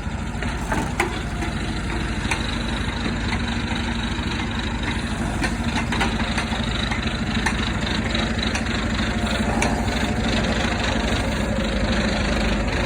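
Diesel engine of a hiab crane lorry running steadily, with a few sharp metallic clanks.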